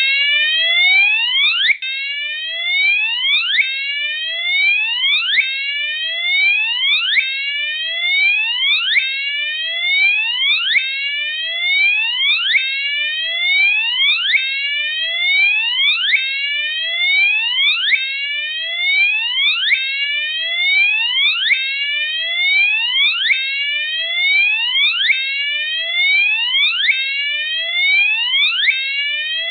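Gentex Commander 3 fire alarm horn sounding its whoop tone: a loud electronic sweep that rises from low to high, repeating about once a second.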